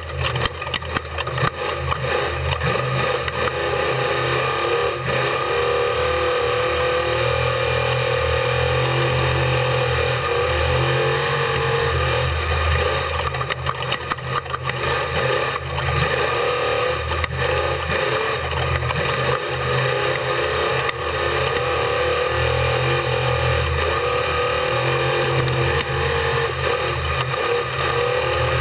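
Unlimited-class desert race truck's engine running hard, its pitch rising and falling with the throttle, with repeated knocks and rattles from the truck over rough ground, heard from on board.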